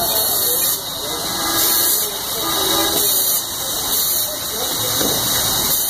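Loud, steady hiss from the machinery of a heated hydraulic door press, swelling and dipping in level every second or so.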